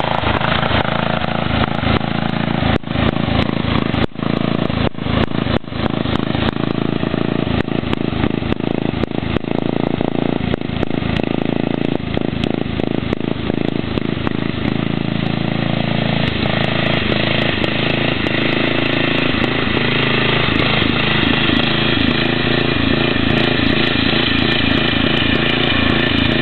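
Cub Cadet 482 lawn tractor's 11 hp Briggs & Stratton engine running loud and steady through dual straight pipes as the tractor is driven across a field. The sound is choppy, with several brief dropouts, for a few seconds early on, then runs unbroken.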